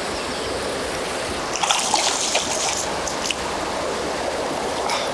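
Steady rush of a fast, turbulent creek. About a second and a half in comes a burst of splashing at the surface as a hooked trout is brought to hand.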